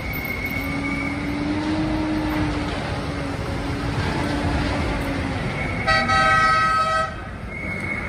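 Road traffic and heavy vehicle engines running in the street, with a vehicle horn sounding one loud blast about a second long, some six seconds in.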